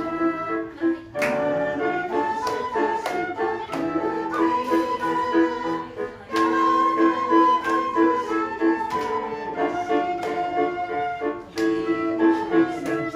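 Quena playing a slow melody over electronic keyboard accompaniment, in a quena-and-keyboard duet.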